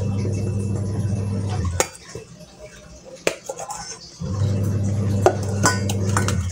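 A steady low buzzing hum in two spells of about two seconds each, with a few sharp clinks of kitchenware between and over them.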